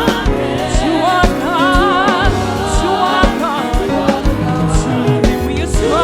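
Live gospel praise music: singing voices with strong vibrato over a band with a steady drum beat.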